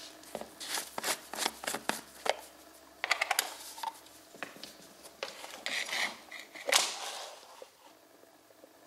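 Plastic screw cap being twisted off a plastic oil bottle: a quick series of sharp clicks and crackles, then rustling handling of the bottle and a plastic cup, with one louder knock near the end.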